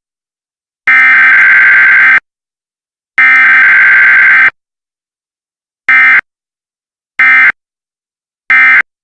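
Emergency Alert System SAME data tones: the last two of the three header bursts, each a little over a second long with about a second between them, then three short end-of-message bursts about a second and a quarter apart, marking the end of the weekly test.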